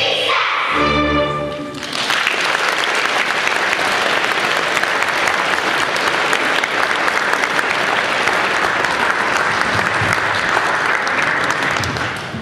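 A children's choir and orchestra end the piece on a held chord about two seconds in, followed by audience applause that fades near the end.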